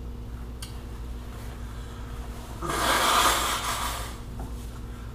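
A person blowing his nose hard into a tissue once, about three seconds in, for a second and a half: his nose is running from the heat of a raw Trinidad scorpion pepper.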